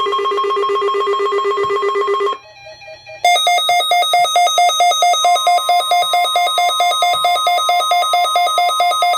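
Weather alert radio sounding its electronic alarm: rapid beeping, about four beeps a second, breaking off briefly a little over two seconds in and resuming at a higher pitch. About five seconds in, a steady tone joins underneath: the weather radio's warning alarm tone sent during the weekly test.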